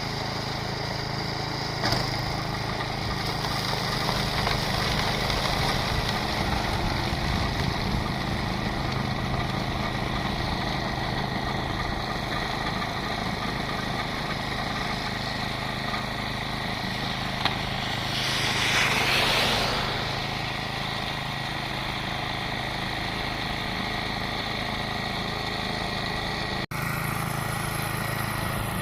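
Toro 828 two-stage snowblower's small engine running steadily, with a brief rushing swell about two-thirds of the way through. The sound cuts out for an instant near the end.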